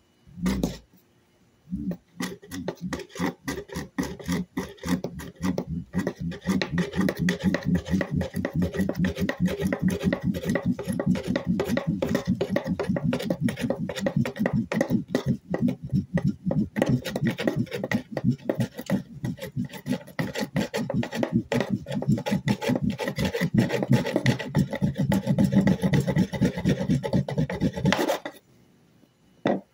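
Fire-roll friction fire: a flat wooden board is pressed down and rolled fast back and forth over a cotton-and-wood-ash roll on a plywood tabletop, giving a quick, even, rasping rub stroke after stroke. The rubbing is meant to heat the roll into an ember. It starts about two seconds in, after a short knock, and stops suddenly near the end.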